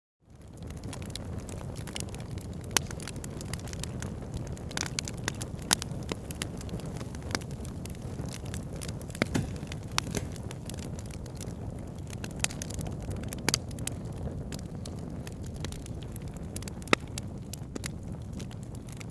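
Wood fire burning in a fireplace: a steady low rumble of flames with frequent sharp crackles and pops, a few of them louder. The sound fades in from a brief silence at the very start.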